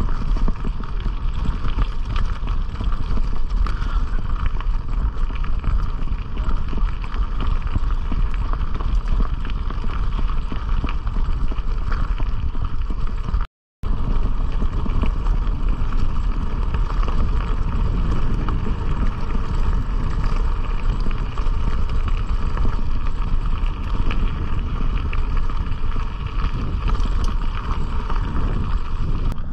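Bicycle tyres crunching over a loose gravel track at speed, with wind buffeting the microphone: a loud, continuous rolling rattle. The sound cuts out for a moment near the middle.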